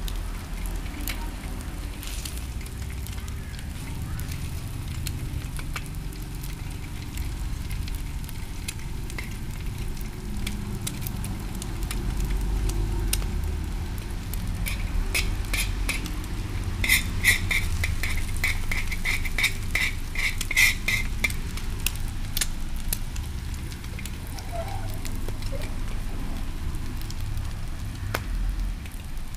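Egg and chopped onion sizzling as they fry in a metal pan, over a steady low rumble. A metal spoon scrapes the pan, with a quick run of sharp taps about two-thirds of the way through.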